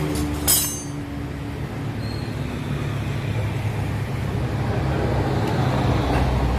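A motor vehicle's engine running steadily with a low hum, growing a little louder near the end, with a sharp click about half a second in.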